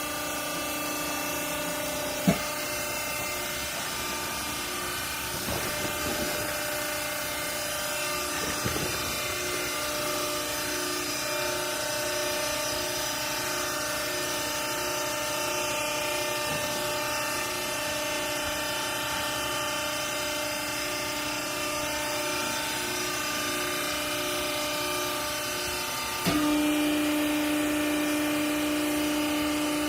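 Hydraulic baling press's electric motor and pump running with a steady hum. A sharp knock comes about two seconds in, and about four seconds before the end the hum steps up louder onto a stronger steady tone.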